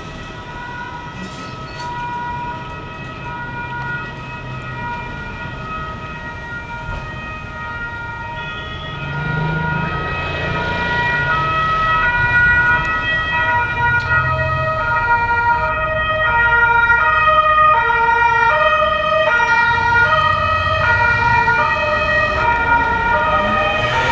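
Italian two-tone emergency sirens, from a Polizia di Stato Fiat Bravo patrol car and an Automedica medical car, alternating evenly between two pitches. They grow louder about a third of the way in, where two sirens overlap. A low engine rumble from traffic runs underneath.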